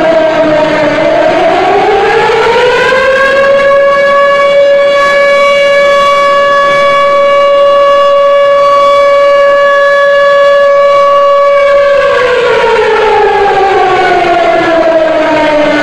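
Civil defence siren wailing for a moment of silence: its pitch dips and climbs near the start, holds one steady tone for about nine seconds, then slowly falls and begins to rise again near the end.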